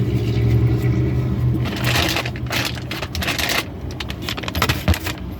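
Food packaging being crumpled and rustled, a dense crinkling for about two seconds, then a few scattered clicks and rustles.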